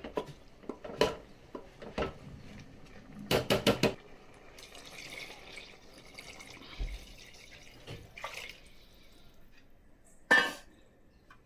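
Kitchen cooking sounds: scattered clinks and knocks of utensils and a pot, including a quick run of four knocks about three seconds in, with faint water sounds.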